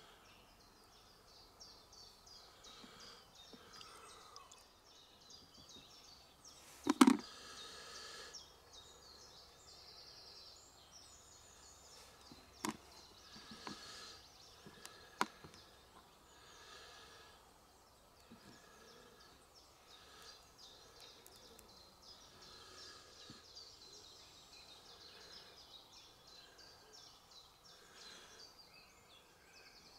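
Quiet outdoor ambience with small birds chirping. There is one sharp knock about seven seconds in and a few lighter clicks around 13 and 15 seconds, from fishing tackle being handled.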